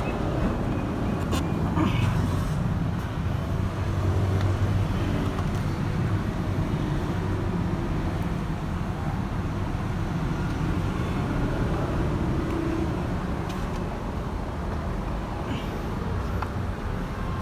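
Steady low rumble of motor vehicle noise, with a few faint light clicks.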